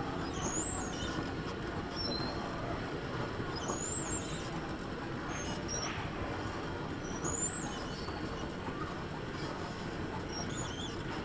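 Riding aboard an electric indoor go-kart: a steady rumble from the kart and its tyres on the smooth track, with short, high tyre squeals several times as it takes the corners.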